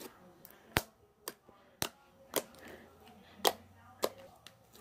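Green glitter slime being poked and pressed by fingers, giving off about six sharp, irregularly spaced pops as trapped air bursts out of it.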